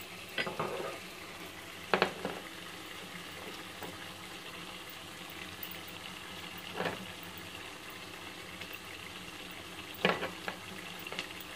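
Mutton and cabbage curry sizzling steadily in a pot on the hob while being stirred with a wooden spoon, with a few sharp knocks of the spoon and dishes.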